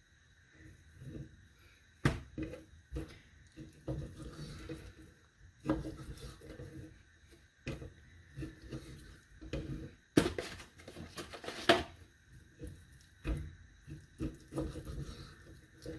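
Kitchen knife cutting raw beef on a cutting board: irregular slicing and handling sounds with sharp knocks of the blade or meat on the board, a few of them loud, over a faint steady hum.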